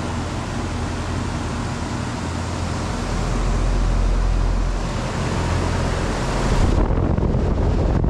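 Comfort-Aire central air conditioner condenser running close up, with a second outdoor unit beside it: a steady rush of air from the condenser fan over a low electrical hum. A deeper rumble swells about three seconds in and again near the end.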